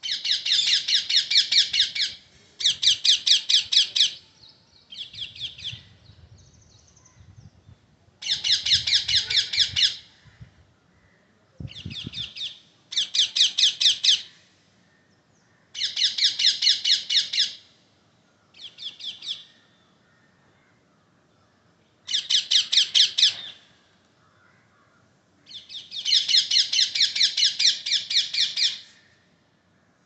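Rose-ringed parakeets calling: about ten bouts of rapid, shrill repeated screeching notes, each lasting one to three seconds, with short pauses between.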